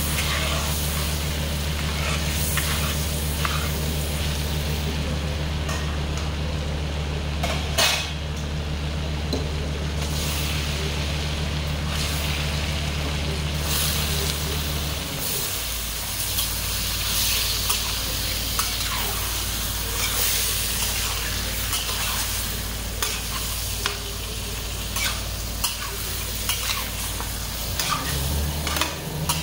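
Oil sizzling in a metal wok as raw chicken pieces fry, with a metal spatula scraping and clicking against the pan as they are stirred.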